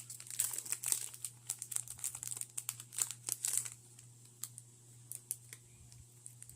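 Foil wrapper of a Pokémon booster pack crinkling and tearing as it is opened, a dense crackle for about four seconds, then only a few faint clicks.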